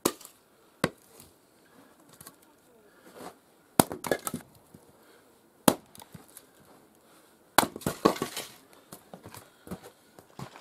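Axe splitting birch firewood on a chopping block: a string of sharp wooden knocks a second or more apart, with bursts of clattering split pieces about four seconds in and again near eight seconds.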